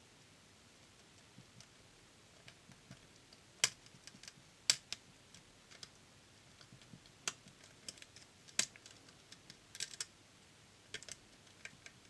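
Faint, irregular small clicks of a hook pick and tension tool working the pins inside a DOM System D cylinder lock, with a few sharper clicks about four and five seconds in and again near nine seconds.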